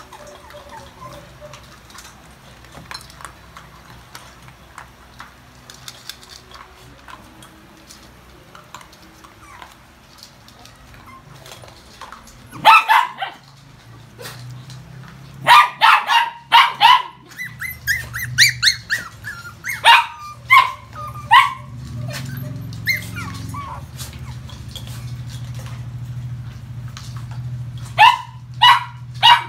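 Faint clicks of toy poodles eating kibble from a steel bowl, then small toy poodles barking: sharp, high-pitched single barks and clusters, with a quick run of yips in the middle.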